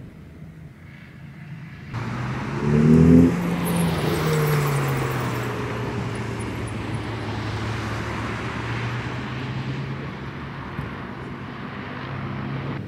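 A car driving past on the mountain road, its engine note sliding down in pitch as it passes, loudest about three seconds in. It is followed by a steady low engine hum under a steady rushing noise.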